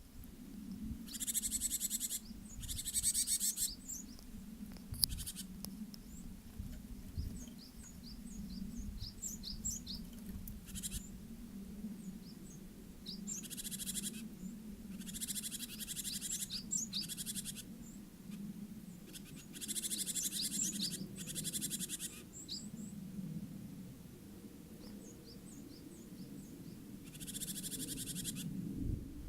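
Varied tit giving harsh, buzzy threat calls, each lasting about a second, repeated several times with short high chirps in between. This is its territorial threat call for driving off a Japanese tit from its nest box, quite unlike its usual 'tsubee-bee' song. A low steady hum runs underneath.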